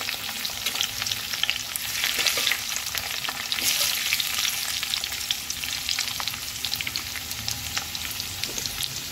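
Potato wedges, a bay leaf and panch phoron sizzling and crackling in hot mustard oil in a karai. A metal spatula stirs and scrapes through them, with the crackling at its brightest about four seconds in.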